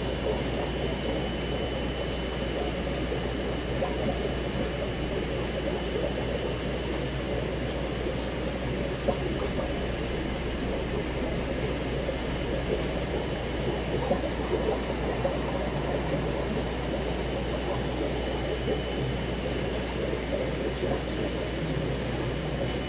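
Steady bubbling and trickling of aquarium water from the tank's filtration and aeration, over a constant low electrical hum.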